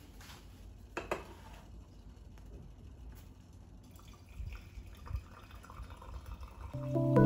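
AeroPress being pressed down, coffee trickling and dripping through into a ceramic mug, with a light knock about a second in. Music starts near the end.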